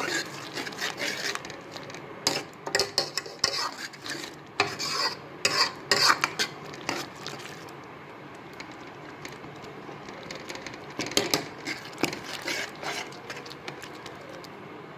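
A spoon stirring thick dal makhani in a metal pan, scraping and clinking against the pan's sides and bottom: busy for the first half, then quieter, with another short run of scrapes later on.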